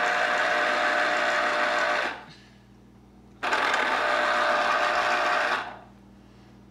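Electric citrus juicer's motor running as a lemon half is pressed onto its spinning reamer. It spins down about two seconds in, starts again abruptly a second or so later, and spins down again near the end.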